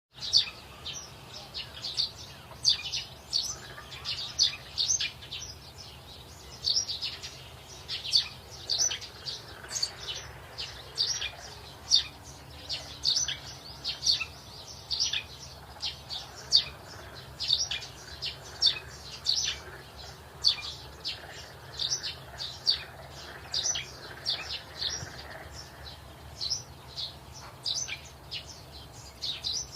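Birds chirping: many short, high chirps following one another quickly and irregularly, over a faint low hum.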